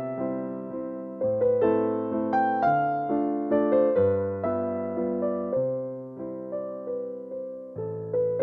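Background music: a calm electric piano melody, its notes struck about twice a second and each fading away.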